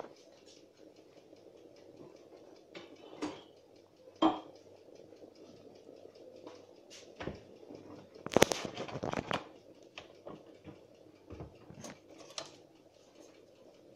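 Pot of soup simmering, bubbling with scattered irregular pops and clicks, and a louder cluster of knocks a little over eight seconds in.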